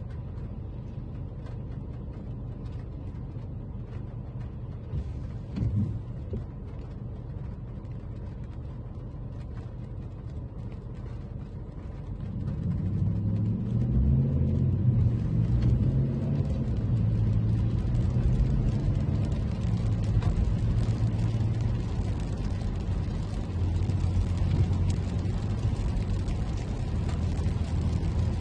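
Toyota Camry driving: steady engine and road rumble that grows louder about twelve seconds in, with a low engine hum that shifts in pitch.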